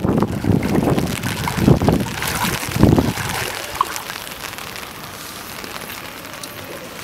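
Wind buffeting the microphone in irregular gusts over floodwater, dying away about three seconds in and leaving a steady, quieter watery hiss.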